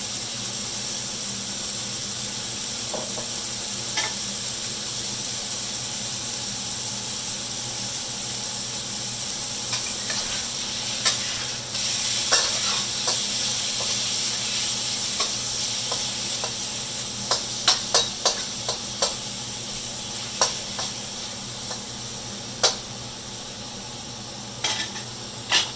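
Chicken pieces sizzling in hot oil in a wok, a steady frying hiss. From about ten seconds in, a spatula clicks and scrapes against the wok now and then as the chicken is stirred.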